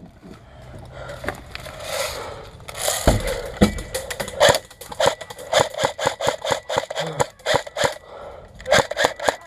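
A quick series of sharp snaps and clicks, about three a second, with a heavier thud about three seconds in.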